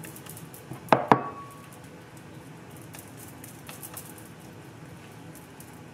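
Two sharp knocks of a hard object against kitchenware about a second in, a fifth of a second apart, the second with a short ring. After that only faint, soft handling sounds while butter is spread over a flattened ball of roti dough.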